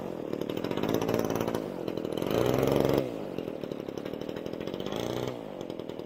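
26cc two-stroke petrol engine of a radio-controlled Seafire model plane running with its propeller buzzing. It is loud and close at first, its revs rising and falling. About halfway through it changes abruptly to a steadier, more distant engine note as the plane makes its takeoff run.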